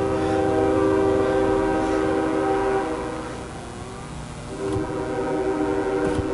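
Diesel locomotive air horn of a CSX coal train sounding for a grade crossing, a chord of several notes: one long blast that stops about three seconds in, then a second long blast starting near the five-second mark.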